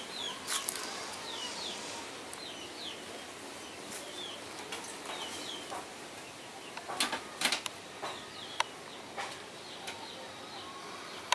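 Small birds chirping repeatedly in short, falling chirps over steady outdoor background noise. A few sharp clicks or knocks come through, the loudest about seven seconds in.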